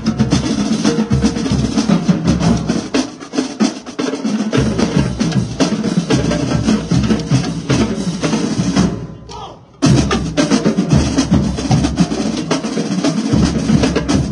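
A marching drumline playing a fast cadence, with snare drums, tenor drums, bass drums and cymbals. About nine seconds in the playing falls away for a moment, then the whole line comes back in together.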